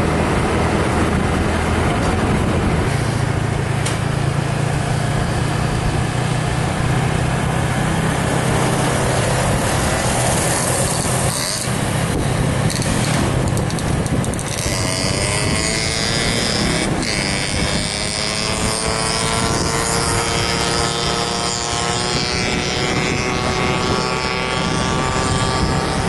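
Motorcycle engine running under way, under a loud rushing noise; from about halfway its note stands out more clearly, rising and falling as the speed changes.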